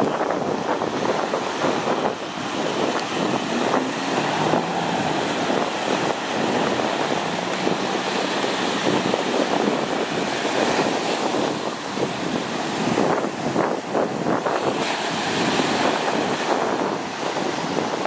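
Surf breaking and washing, with wind buffeting the microphone, and a Sea-Doo jet ski's engine running faintly underneath as it heads out through the waves.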